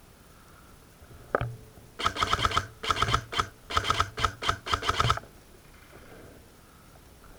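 Airsoft electric gun firing several short full-auto bursts in quick succession, a rapid mechanical clatter with a steady gearbox whine, preceded about a second in by a single sharp click.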